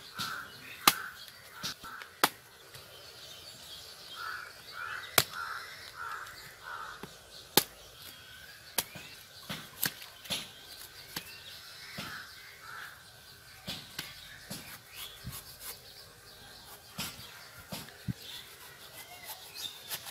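A knife blade cutting and chopping through the fibrous husk of palm fruits (ice apples), a dozen or more sharp, irregular clicks and knocks. A bird calls in two runs of short repeated calls, one near the start and one from about four to seven seconds in.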